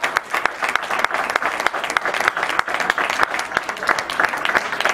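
A group of people applauding: many hands clapping steadily and densely throughout.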